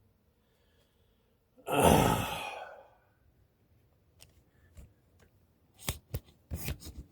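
A man's sigh, one loud breathy exhale about two seconds in that fades over about a second, followed by a few short clicks and knocks near the end.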